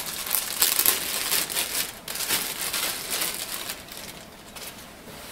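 Clear plastic bag crinkling as a power cord is pulled out of it, in crackly, uneven bursts that die down about four seconds in.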